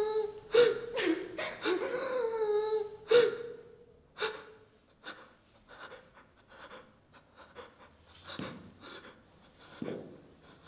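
A woman's breathy vocal sounds, gasps and drawn-out high sighs, for the first three or four seconds. Then only faint breaths and small soft clicks.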